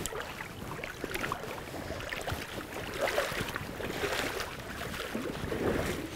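Irregular sloshing and splashing of water, as from someone moving through shallow water.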